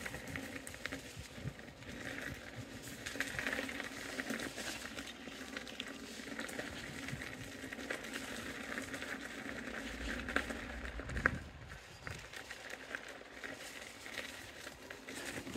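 KingSong KS-18XL electric unicycle's tyre rolling over a gravel trail, crunching and crackling on the loose stones, with a steady low hum underneath and one sharper click about two-thirds through.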